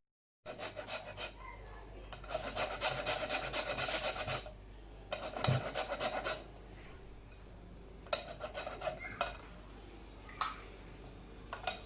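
A lemon being grated on a hand grater to take off its zest: quick rasping strokes in several runs, with short pauses between.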